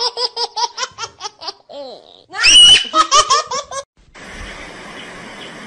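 High-pitched laughter in quick rhythmic pulses, broken by a shrill squeal about two and a half seconds in. After about four seconds it gives way to a steady, quieter hiss.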